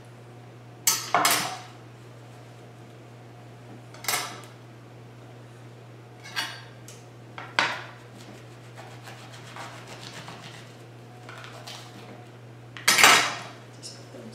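Kitchen knife slicing through grapes held under a plastic lid, the blade knocking and scraping on the cutting board in about six short strokes. The loudest clatter comes near the end, as the knife is set down on the board. A steady low hum runs underneath.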